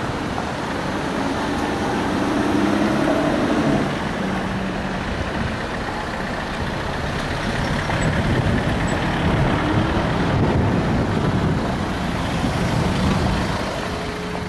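Aston Martin DB9's 5.9-litre V12 running just after a cold start, vapour still coming from the exhaust, its pitch rising and falling with light revs. It swells louder twice, the second time for several seconds.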